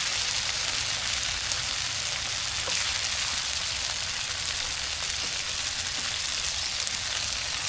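Food frying over a campfire: a steady sizzle with fine crackling throughout.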